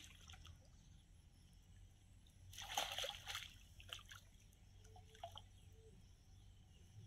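A fish trapped in a cast net thrashing at the surface of pond water. One loud splash about two and a half seconds in lasts about a second, then a few smaller splashes follow.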